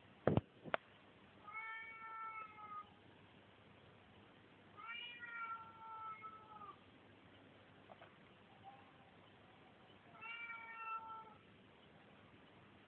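Cat yowling: three long, drawn-out wails of a second or two each, spaced a few seconds apart. Two sharp clicks come just before the first wail.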